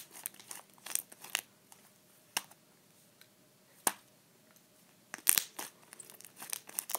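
Fluffy slime being stretched, pulled apart and squeezed by hand, giving irregular sticky pops and crackles, loudest about five seconds in.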